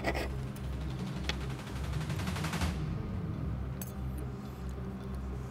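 Background music with a steady low bed, over which a fast rattle of rapid clicks runs for about two seconds and stops abruptly; a couple of light cutlery clinks follow near the end.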